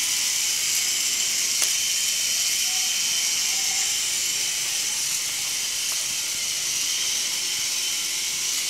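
Motorised K'Nex ball machine running: plastic gears and chain lifts turning with a steady high hiss, and one sharp click about a second and a half in.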